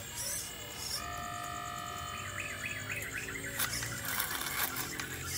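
Hydraulic pump of a radio-controlled excavator whining steadily as the long arm swings down, the pitch dipping as it stops. Birds chirp in the background.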